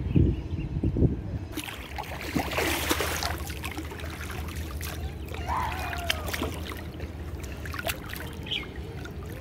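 Swimming-pool water lapping and splashing as toy dolls are pushed through it by hand, with a couple of low thumps in the first second.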